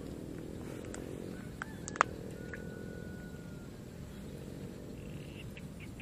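Outdoor ambience with a steady low rumble. A sharp click sounds about two seconds in, followed by a thin, steady whistle lasting about a second. A run of quick ticks begins near the end.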